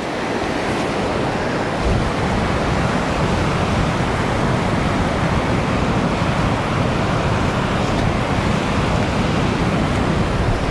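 Steady wash of ocean surf mixed with wind, with wind buffeting the microphone in a low, fluctuating rumble that grows stronger about two seconds in.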